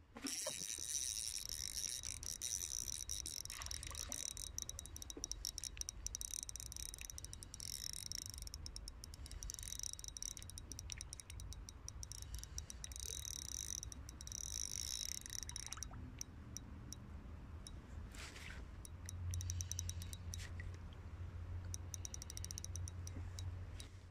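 Spinning reel being cranked: a fast ticking whir that starts suddenly and comes in spells with short pauses, as a 1 g spinner spoon and then a small hooked fish are reeled in. There is a low rumble of rod handling beneath it.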